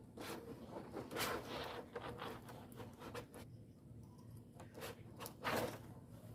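Cotton tape being pulled through and rubbed against the copper windings of a ceiling-fan stator as the coil is laced, a string of irregular scrapes and rustles, the loudest about five and a half seconds in.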